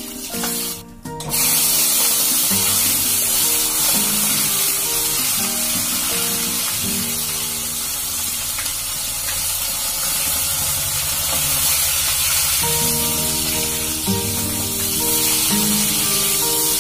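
Food frying in hot oil in a kadai (wok) on a gas burner: a loud, steady sizzle that starts suddenly about a second in. Background music plays under it.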